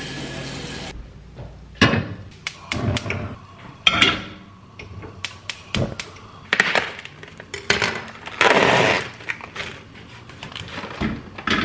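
Kitchen cooking prep: tap water runs into a pot for about a second at the start, then pots and pans clank and knock as they are handled and set on the gas stove, with a longer rustle about eight seconds in.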